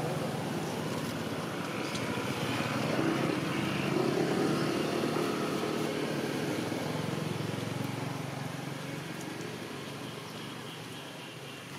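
Steady engine-like noise of a motor vehicle that grows louder about four seconds in, then slowly fades away.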